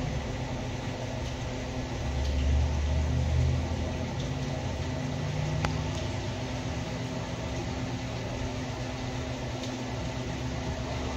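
Steady mechanical hum and hiss of running equipment, with a low rumble that swells about two seconds in and eases off about two seconds later.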